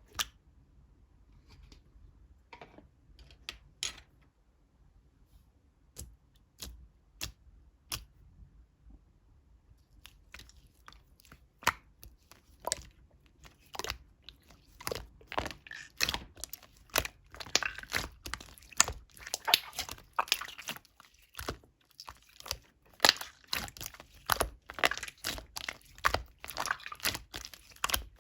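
Clear slime being worked by hand, giving sticky clicks and pops: a few scattered clicks at first, then from about ten seconds in a dense, continuous run of crackling clicks.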